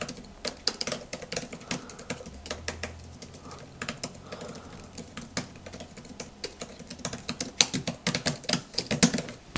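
Quick, irregular clacking of keystrokes typed on the Samsung Book Cover Keyboard Slim, the Galaxy Tab S10 Ultra's keyboard case, coming thickest near the end.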